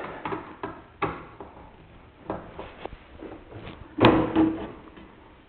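Sheet-metal plate on a microwave's top being pried loose and handled, with light clicks and scrapes and one sharp metallic clank about four seconds in that rings briefly.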